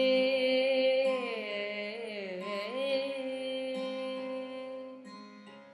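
Carnatic singing: a female voice holds a long note at the end of a phrase, with a slow ornamental dip in pitch and back around the middle, over a steady drone; the note fades away near the end.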